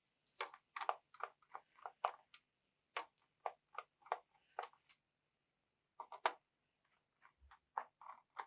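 Short, sharp, irregular clicks, one or two a second with a pause past the middle: a screwdriver working the screws of a Dell Precision M2800 laptop's bottom access cover.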